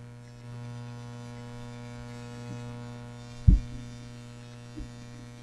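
Steady electrical mains hum with a buzzy run of overtones, carried on the recording. A single short low thump comes about three and a half seconds in.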